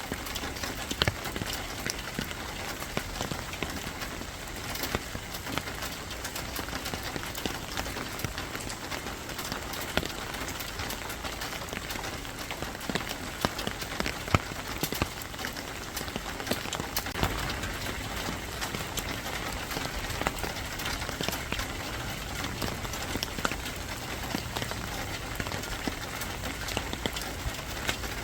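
Steady rain falling on a hard surface, with many separate drops ticking sharply over an even hiss.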